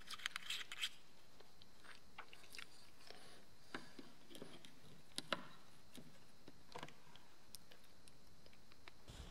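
Small clicks, ticks and scrapes of hands screwing a close-up macro filter onto a filter stack and fitting it in front of a GoPro camera. A quick flurry of clicks in the first second, then scattered taps, one sharper click about five seconds in.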